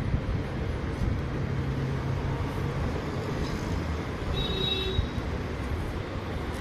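Steady low rumbling background noise, with a brief faint high tone about four and a half seconds in.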